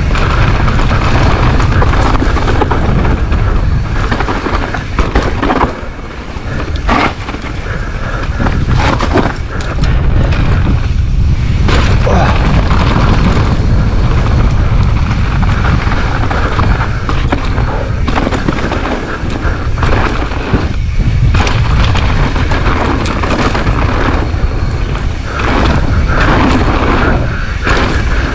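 Mountain bike descending a dirt forest trail at speed: a steady low rumble of wind buffeting the microphone and tyres rolling on dirt, broken by frequent knocks and rattles of the bike over bumps.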